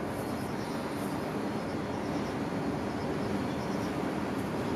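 Steady low rumbling background noise with no change in level, overlaid by faint, quick high chirps that recur every half second or so.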